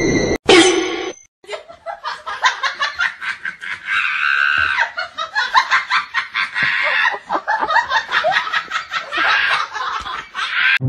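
A short, loud squawk from a rubber chicken squeaky toy about half a second in. It is followed by a person laughing hard in rapid, choppy bursts for the rest of the time.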